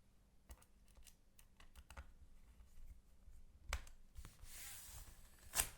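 Faint, scattered light clicks and taps from handling a laptop, with a brief rustle and a sharper click near the end.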